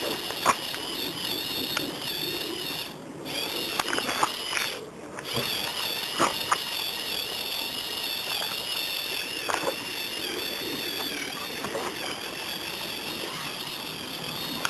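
Electric motors and gear train of a Lego Technic model trial truck whining as it drives over rough ground, the pitch wavering with the load. The whine stops briefly twice. Sharp clicks and ticks are scattered through it.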